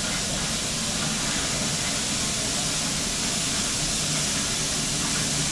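Steam locomotive standing still, hissing steam steadily.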